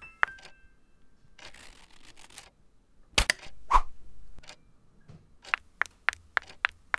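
Two sharp knocks about three seconds in, then a brisk, even run of footsteps on a hard floor from about five and a half seconds, about four sharp clicks a second.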